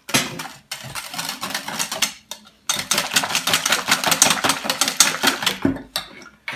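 Wire balloon whisk beating a thin liquid batter in a stainless steel bowl, the wires rattling rapidly against the metal. It comes in three spells, with a short pause about two seconds in, and tails off near the end.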